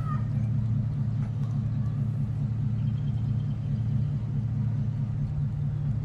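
Hyper Tough 1800 psi electric pressure washer running with a steady low hum.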